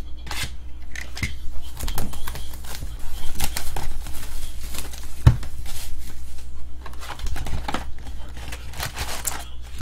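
A knife slitting the shrink wrap on a cardboard trading-card box, then plastic wrap crinkling and tearing as it is pulled off and the box flap is opened: scratchy scraping and rustling with many small clicks and one sharp knock about five seconds in.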